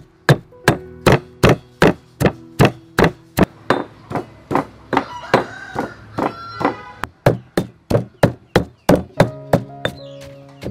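Wooden pestle pounding lemongrass, galangal, kaffir lime leaves and garlic into a paste in a stone mortar: steady thuds about two and a half a second, stopping near the end. Background music plays underneath.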